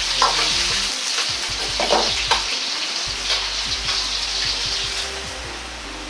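Green beans and sliced onion frying in hot oil in a wok: a dense, steady sizzle, with a few sharp clinks of the metal ladle against the wok in the first two or three seconds. The sizzle grows quieter about five seconds in.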